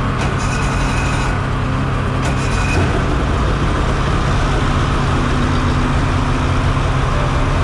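Polaris snowmobile's two-stroke engine idling steadily on its first start of the season.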